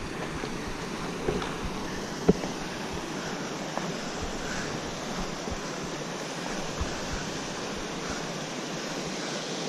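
Steady rushing hiss of creek water flowing and cascading over granite, with a few faint knocks of footsteps on the rock.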